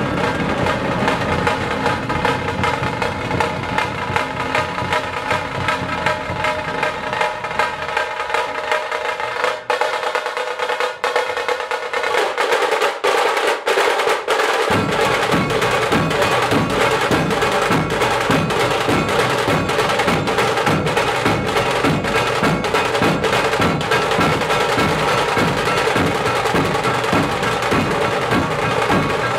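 Dhol tasha ensemble playing: large barrel-shaped dhol drums with rapid rolling tasha drums. About a third of the way in the deep dhol strokes drop out, leaving the tashas rolling, and about halfway through the dhols come back in together on a steady, even beat.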